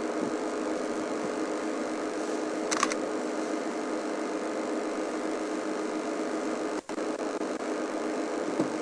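Steady mechanical hum with a few even, unchanging tones. A brief high chirp comes about three seconds in, and the sound drops out for an instant near seven seconds.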